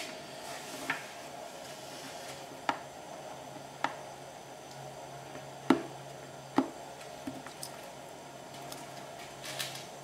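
Scattered light knocks and clicks from handling things on a workbench, about eight spread unevenly over the stretch, with the loudest two a little past the middle, over a faint steady hum.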